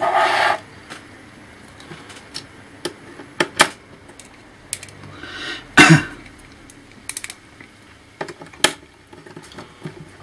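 Small screws and a screwdriver clicking and tapping against a laptop's plastic casing as the screws are put back in their holes. There is a short scrape at the start, scattered light clicks, and one louder knock about six seconds in.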